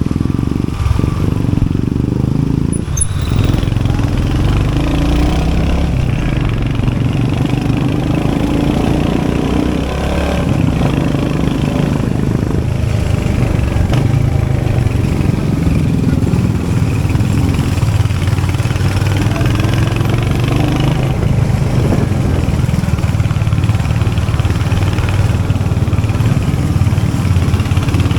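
Royal Enfield Hunter 350's 349cc single-cylinder J-series engine and exhaust running steadily, with its pitch shifting up and down a little.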